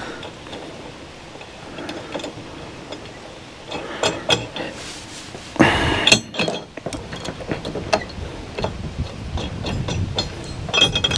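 Small metal clicks and clinks of hardware being handled as a 1/4-inch flange nut is started onto a flange bolt on a Firestone Ride-Rite air-spring upper mount. There is one louder, half-second scrape about six seconds in.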